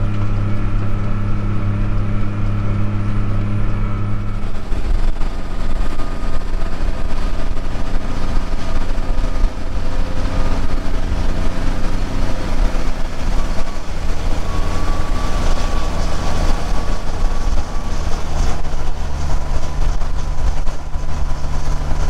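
Case IH tractor's diesel engine running steadily as it drives, a loud low drone whose pitch shifts about four seconds in.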